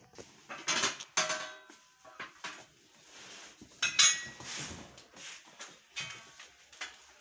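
Metal frame parts of a forage chopper knocking and clanking against each other and the cardboard box as they are lifted out. Several strikes ring briefly, and the loudest knocks come about a second in and about four seconds in.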